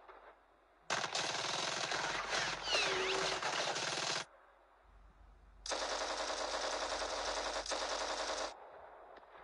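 Machine-gun fire sound effect: two long bursts of rapid automatic fire, the first starting about a second in and lasting about three seconds, the second starting just past the middle and lasting about three seconds.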